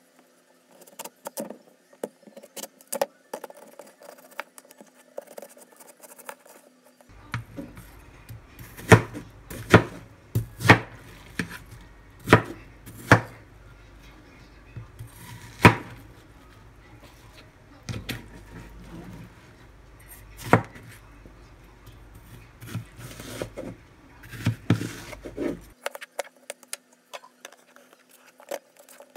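Kitchen knife cutting watermelon on a plastic cutting board: scattered knocks of the blade against the board, with a run of loud, sharp chops in the middle.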